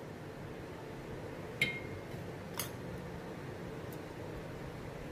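A metal spoon clinking twice against a stainless-steel mixer-grinder jar as ghee is spooned in, the first clink ringing briefly, over a faint steady background noise.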